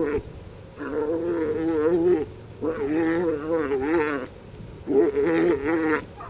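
Cattle bawling again and again: long, wavering calls, three in a row about two seconds apart.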